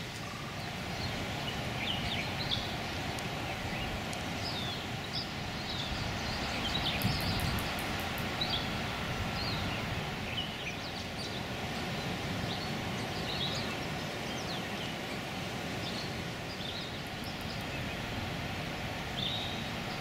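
Outdoor ambience: many small birds chirping and twittering in short scattered calls over a steady rushing background noise.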